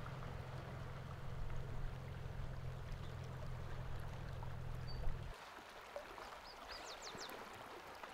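River water rushing steadily past, under a low steady rumble that cuts off abruptly about five seconds in; after that the water runs on more quietly, with a few short high chirps near the end.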